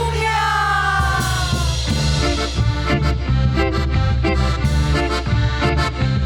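Cumbia band starting a song with an instrumental intro: held notes that slide down in pitch, then from about a second in a steady dance rhythm with repeated chords and bass.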